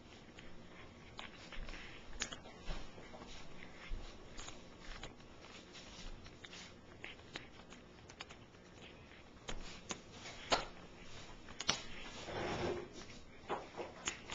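A cat crunching and gnawing on cooked chicken bones: irregular crisp cracks and clicks, with a couple of louder snaps in the second half.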